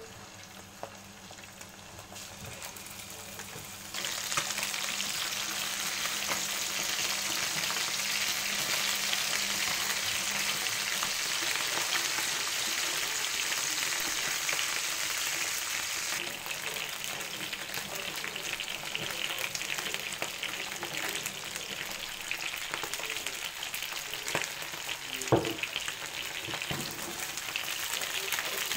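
Chicken wings sizzling as they pan-fry in a non-stick frying pan while being turned over. The sizzle jumps much louder about four seconds in, once the pan is full, and there is a single sharp knock near the end.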